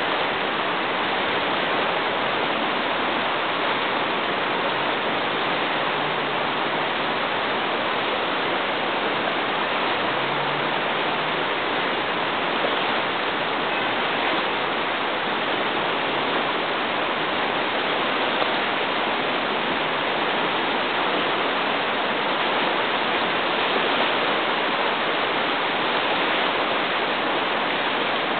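The Isar river running high and muddy, its fast turbulent water rushing past in a loud, steady wash of noise.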